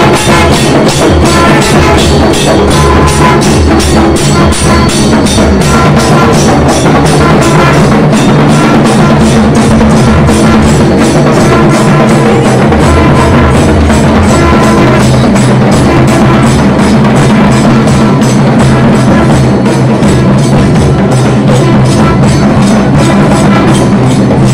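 Loud procession band: barrel drums beating a fast, steady rhythm, with a brass horn holding long notes over them.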